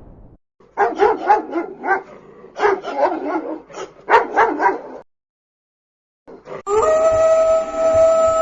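A dog barking in quick runs of short, yappy barks, then, after a pause, a long steady howl that starts near the end.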